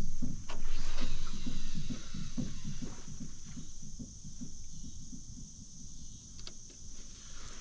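Fishing rod cast out and its reel cranked: a fast, even run of low clicks, loudest in the first two seconds.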